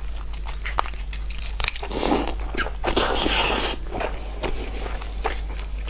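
Close-miked eating: a person biting and chewing food, with many small mouth clicks and two longer crunching bites about two and three seconds in.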